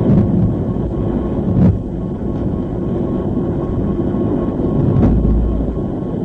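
Steady low rumbling background noise with a few faint clicks, no voice.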